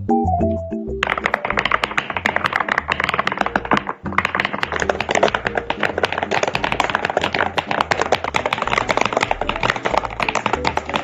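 Fast typing on a YUNZII C75 mechanical keyboard: a dense run of rapid keystroke clicks with a brief break about four seconds in. Background music with a bass line runs underneath, and only music is heard for the first second.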